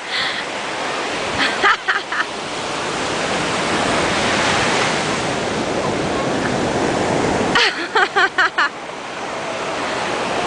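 Ocean surf washing steadily on a sandy beach, swelling a few seconds in. Twice, short rapid bursts of a child's voice cut through it.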